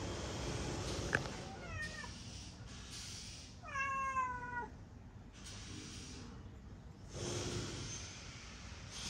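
Domestic cat meowing: a short call about two seconds in, then a longer, louder meow about four seconds in that falls slightly in pitch.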